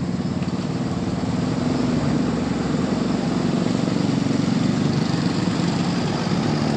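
Bus engine running with a steady low drone.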